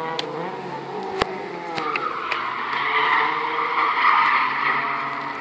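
Car engine on a race track with its note dropping as it comes off the throttle, then tyres skidding, loudest about four seconds in and fading.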